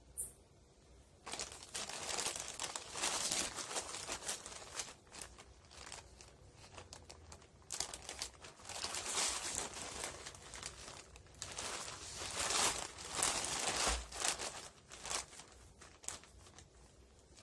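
Crinkling of a plastic courier mailer bag being handled and crumpled by hand, in uneven bursts that begin about a second in and ease off near the end.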